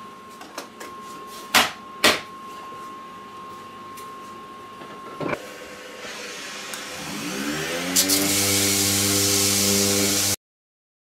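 A few sharp wooden knocks, then a random orbital sander fitted with a dust-extraction hose spins up about seven seconds in. It settles into a steady whine with a loud hiss as it rough-sands wood at 120 grit, and stops abruptly near the end.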